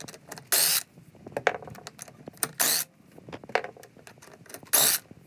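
Impact wrench run in three short bursts, about two seconds apart, spinning lug nuts off an ATV's wheels, with sharp metallic clicks and clinks of nuts and sockets between the bursts.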